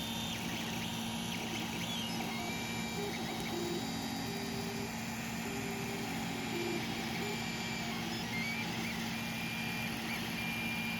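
Ender 3 3D printer printing: its cooling fans run steadily under the whine of the stepper motors, whose short tones jump in pitch from move to move as the print head travels back and forth laying down filament.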